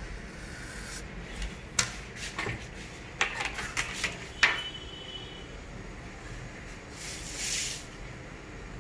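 A clear plastic pattern ruler and marker handled on drafting paper: a run of light clicks and taps in the first half, then a brief sliding rustle near the end.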